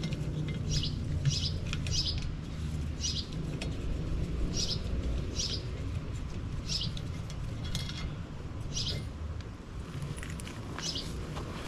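A bird calling over and over: about ten short, high chirps, roughly one a second at uneven intervals, over a steady low rumble.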